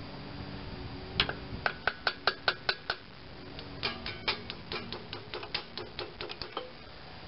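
Small hammer tapping on a 3/16-inch Allen key seated in a seized socket-head screw on an Onan B48M engine, metal on metal, to jar the screw loose. About eight sharp, ringing taps come in quick succession, then after a short pause a longer, faster run of lighter taps.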